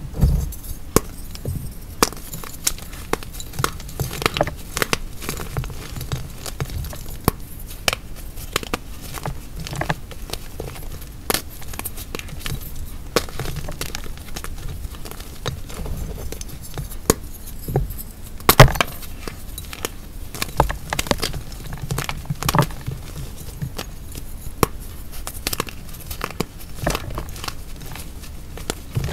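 Dry, hardened gym-chalk hearts being crushed: an irregular run of crisp crunches and crackles, with a few sharper snaps, the loudest about two-thirds of the way through.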